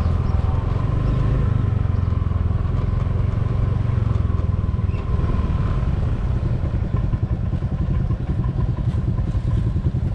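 Motor scooter engine running on the move, with a steady low rumble. About halfway through it slows, and the running turns into a slower, evenly pulsing putter.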